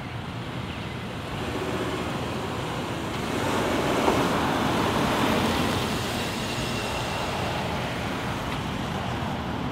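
Road traffic noise, swelling as a vehicle passes about four seconds in.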